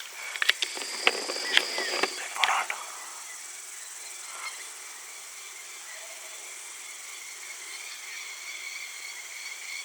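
Steady high-pitched chirring of insects in the background, with a burst of clicks and rustling in the first few seconds.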